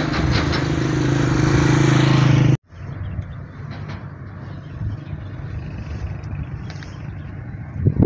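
A motor vehicle's engine running close by with a steady hum, growing louder, then cut off abruptly about two and a half seconds in. A quieter, even outdoor background hiss follows.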